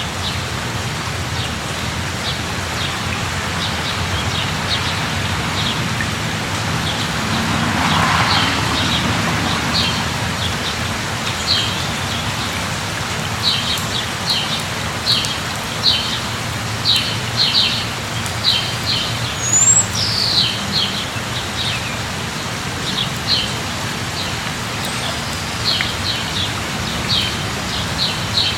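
Steady rain falling, with a bird chirping in short quick runs over it and giving one quick rising-then-falling whistle about twenty seconds in. A brief swelling whoosh rises and fades about eight seconds in.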